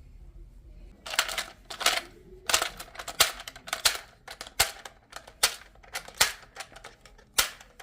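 Caldwell speed loader clicking as it pushes .22 LR cartridges one at a time into a Ruger rotary magazine. Repeated sharp plastic-and-brass clicks, roughly one every three-quarters of a second, starting about a second in.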